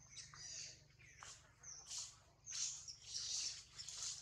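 Birds chirping in short, high-pitched bursts every half second or so, over a faint steady low hum.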